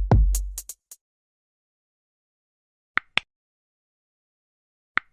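The end of an electronic drum-machine music intro: a few last drum hits and clicks stop within the first second. Then silence, broken by two pairs of short, sharp clicks about two seconds apart.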